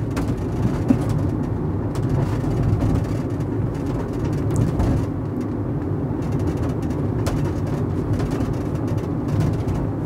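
Cabin noise of a Fiat Doblo cargo van coasting with the clutch held down and no brakes applied: a steady low road-and-drivetrain rumble with a few light rattles. The thumping noise being hunted, heard when braking from the rear, is absent.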